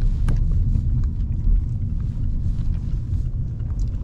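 Car cabin noise while driving: a steady low rumble of road and engine heard from the back seat, with a single sharp click about a third of a second in.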